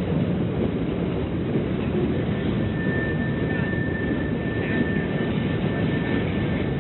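Train passing: a steady, loud low rumble, with a thin high squeal setting in a little over two seconds in and holding on.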